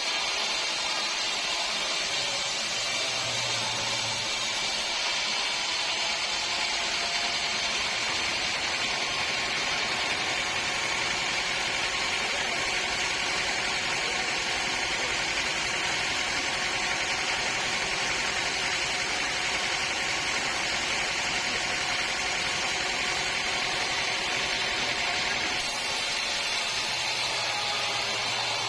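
Sawmill machinery running steadily, a constant dense mechanical noise with a high whine.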